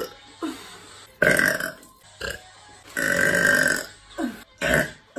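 A string of burps from young women: a loud one about a second in, a long one held for nearly a second around the three-second mark, and short ones in between.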